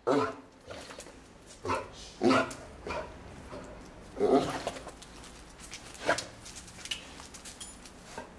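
Basset hound giving short, excited barks at irregular intervals, the loudest at the start, about two seconds in and about four seconds in: an excited greeting.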